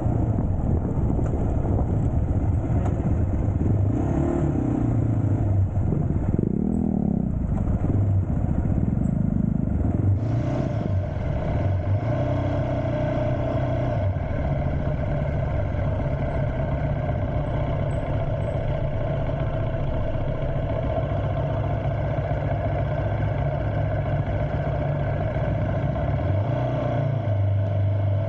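Motorcycle engine running, heard from on the bike. Its sound varies over roughly the first ten seconds, then it runs at a steady pitch from about ten seconds in.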